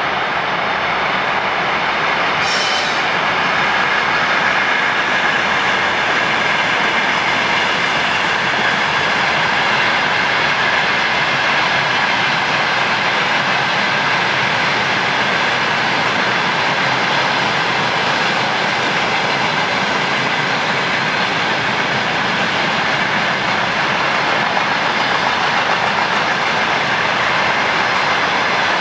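Freight train wagons rolling past steadily, with wheels clattering over rail joints and a steady squeal from the wheels. A brief hiss comes about two and a half seconds in.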